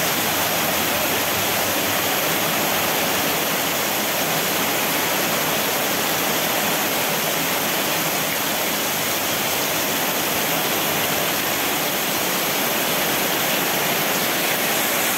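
Torrential rain pouring down: a steady, unbroken rush of noise.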